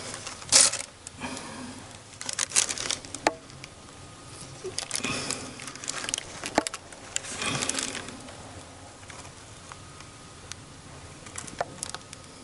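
Clear plastic bag crinkling and rustling in several short bursts as gloved hands squeeze thickened epoxy from it into screw holes in fibreglass.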